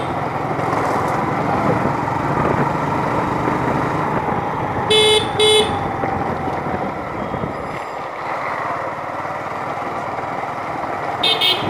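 Steady wind and engine noise of a motorbike ride along a street. A vehicle horn beeps twice in quick succession about five seconds in, and twice more near the end.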